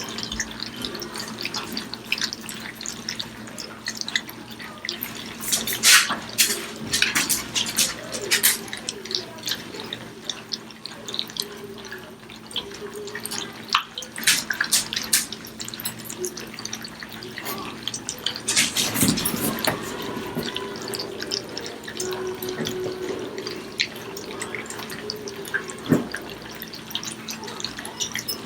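A litter of four-week-old German Shepherd puppies lapping and chewing soft, wet puppy food from a dish: many quick, irregular wet clicks and smacks.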